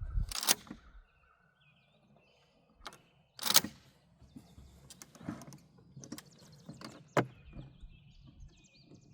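A single sharp shotgun report about three and a half seconds in, from a 12-gauge Mossberg 500 pump firing a 3-inch Winchester Longbeard XR turkey load. Around it are shorter clicks and knocks of gun handling, and birds chirp faintly in the second half.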